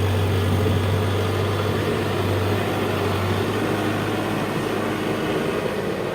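Engine of a heavy construction machine or tractor running steadily with a low drone, which eases a little about halfway through.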